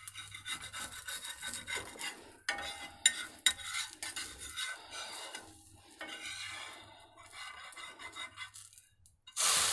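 Metal spatula scraping and tapping around the edges of an uttapam on a hot griddle, loosening it, with a few sharp clicks of metal on the pan. Near the end it is turned over and a steady sizzle starts.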